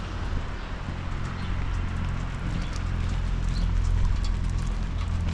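Footsteps walking on wet pavement in the rain, with the patter of rain and a steady low hum underneath.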